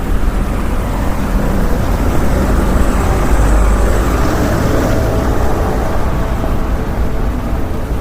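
Street traffic ambience: a steady low rumble of passing vehicles that swells a little around the middle.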